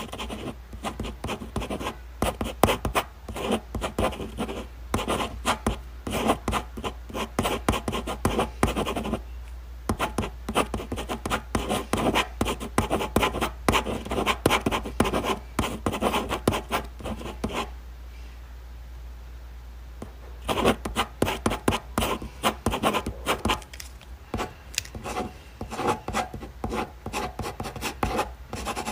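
Pen writing on paper: quick, irregular scratchy strokes, stopping for a couple of seconds a little past halfway and then starting again.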